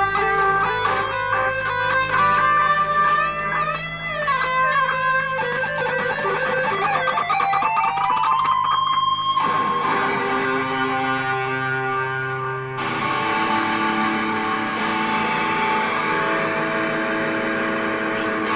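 Electric guitar played through an effects pedal: a lead line of sliding, bending notes climbs to a held note about nine seconds in, then gives way to longer sustained notes.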